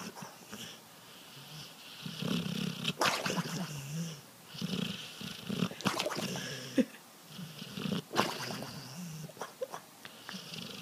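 A sleeping dog snoring noisily, one snore every couple of seconds.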